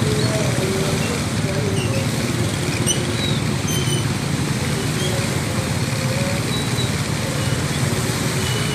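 Motorcycles running slowly through a flooded street, their engines mixed with the wash of floodwater around the wheels, in one steady noise.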